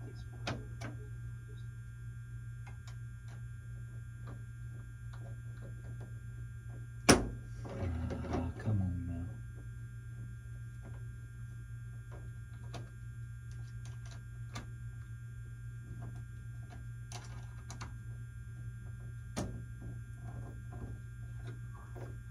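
Small clicks and taps of fingers fitting the wing struts of a model biplane, over a steady low hum. About seven seconds in there is one sharp knock, followed by a brief low murmur.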